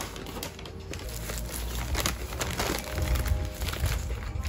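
Plastic courier pouch crinkling and rustling as it is handled, with dense irregular crackles.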